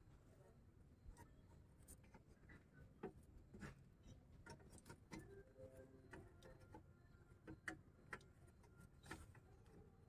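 Near silence with faint, scattered clicks and rubbing as a small lamp bulb is handled and pushed into its lamp housing behind a truck bumper.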